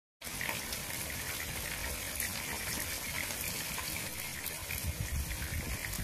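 Tomato sauce simmering around a fried fish in a pan, a steady bubbling hiss with small pops.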